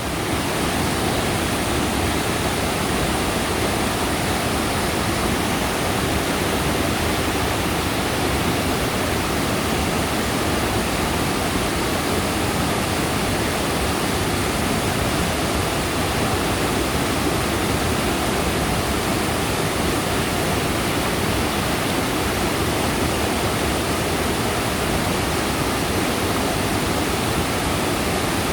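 Mountain stream's water rushing, a steady, even noise.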